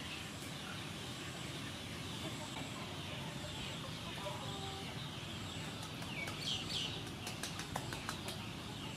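Steady background noise with a few faint bird calls about six and a half seconds in. Soft clicks near the end as hands rub coarse salt into boiled pork belly skin.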